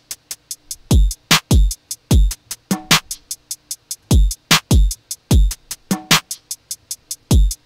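Electronic drum pattern looping from Native Instruments Maschine 3 drum samples: deep kicks that drop in pitch, fast hi-hat ticks and claps in a steady repeating beat.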